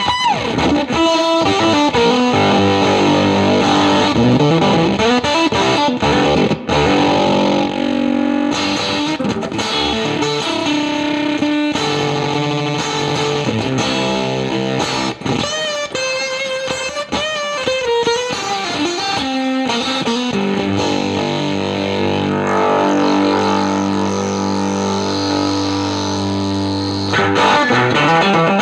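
Strat-style electric guitar played through a Spruce Effects Volcanoes silicon/germanium hybrid fuzz pedal into a Milkman The Amp 100 amplifier: distorted, gritty single-note lines and held notes. Sliding notes near the start, a bent note wavering with vibrato about halfway through, and sustained notes ringing in the last part.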